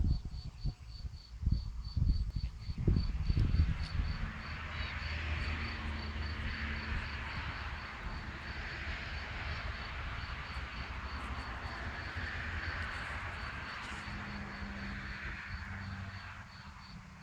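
High insect chirping, pulsing evenly at about four chirps a second, over a steady hiss that swells in after a few seconds and fades near the end. A few low thumps come in the first seconds.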